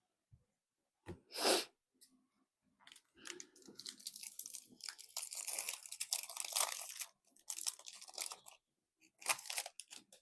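Foil Magic: The Gathering collector booster pack being torn open and its wrapper crinkled: a sharp rustle, then several seconds of crackling and tearing, and a few short crinkles near the end.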